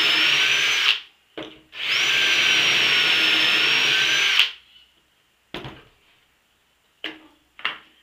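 Cordless drill running at full speed, boring a pocket hole through a pocket-hole jig: it runs until about a second in, stops briefly, then bores again for about two and a half seconds before stopping. A few short knocks follow in the second half.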